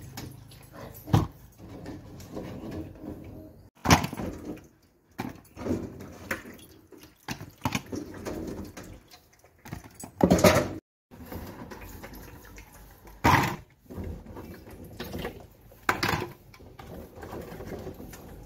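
Rose apples being washed and handled at a steel kitchen sink: water with irregular knocks and clatter, cut off abruptly several times.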